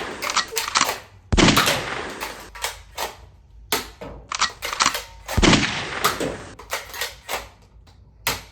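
Toy gun firing: two loud shot-like bangs, about a second in and again about five seconds in, each trailing off, among many quick sharp clicks.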